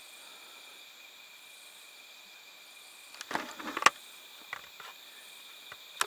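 Night insect chorus of crickets trilling steadily at a high pitch, with a short run of sharp scuffs and clicks about three and a half seconds in.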